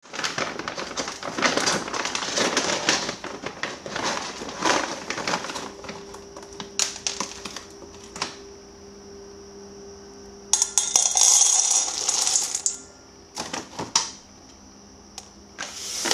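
Rapid clicking and clattering of small hard objects, with a louder rattling rush of about two seconds in the middle and scattered clicks after it. A faint steady hum and a high whine run underneath.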